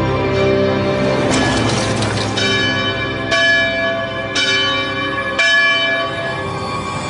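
A single church bell tolling, struck roughly once a second, each stroke ringing on into the next.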